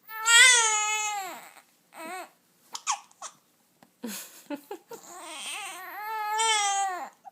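Baby crying: two long, loud wails, each dropping in pitch as it ends, with short broken catches in between as hiccups interrupt the crying.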